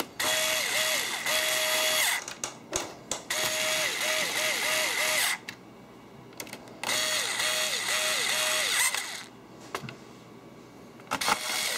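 Coleman 2.4-volt FlashCell cordless screwdriver driving screws into a laptop's plastic bottom shell. Its motor runs in three bursts of about two seconds each, one per screw, with short clicks and quieter pauses between screws.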